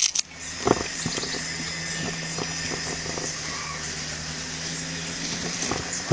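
Hands packing fresh dill and herbs down into a large glass jar: a knock about a second in, then light ticks and rustling, over a steady hum.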